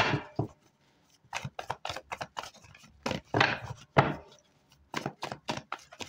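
Tarot cards being shuffled and handled by hand: a run of irregular light clicks and taps, a few louder ones near the start and around three to four seconds in.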